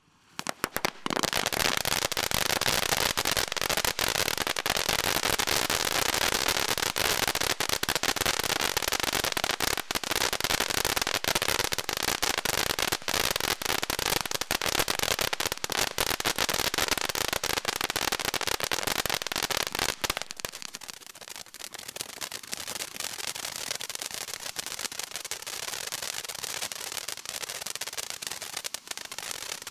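Promise Land firework fountain burning: a dense, steady hiss full of rapid crackling pops, starting within the first second. About twenty seconds in it eases off and grows thinner, with fewer crackles.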